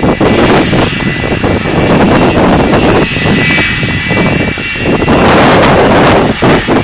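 McDonnell Douglas MD-80's two rear-mounted Pratt & Whitney JT8D turbofans at takeoff thrust, a loud, rushing jet roar with a faint whine, heard close beside the runway with gusts buffeting the microphone.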